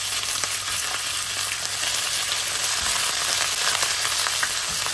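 Sliced pork sizzling steadily in hot olive oil in a nonstick wok, with fine crackling, as a spatula stirs the pieces.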